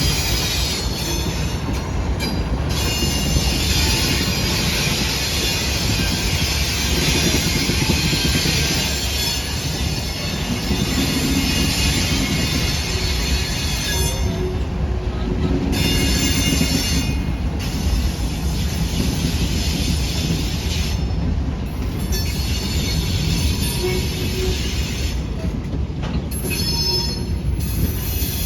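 Freight train rolling past, its steel wheels running on the rails with high-pitched wheel squeal that comes and goes.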